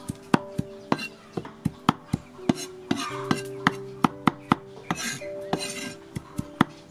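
Steel cleaver chopping rapidly on a wooden chopping board, mincing food with sharp knocks at about three strokes a second.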